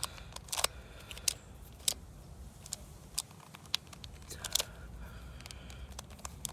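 Plastic puzzle cube clicking irregularly as its layers are twisted by hand, a dozen or so sharp clicks at uneven intervals.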